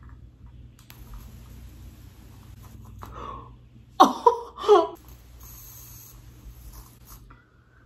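Electric rechargeable arc lighter making a thin, high buzz as its arc is held to a candle wick. A woman's short, loud exclamation breaks in about four seconds in.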